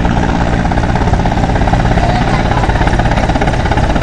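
Mi-17-type twin-turbine transport helicopter coming in low to land, its main rotor giving a loud, steady, rapid blade chop over the turbine noise.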